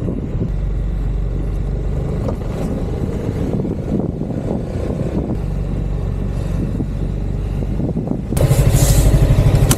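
Honda Forza scooter's engine running at low riding speed with a steady low hum. About eight seconds in it gets suddenly louder, with a fast, even pulsing.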